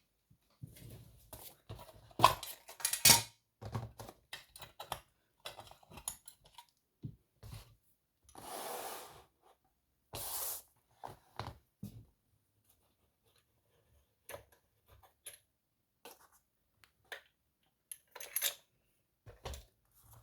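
Small metal lock parts and hand tools clicking and clinking as a picked pin-tumbler lock is handled to be taken apart, with a cluster of louder clinks early on and two longer rasping sounds about halfway.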